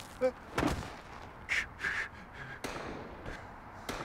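Drama soundtrack of a crowd fleeing in panic: a few short, hoarse cries and several sharp bangs, with no music.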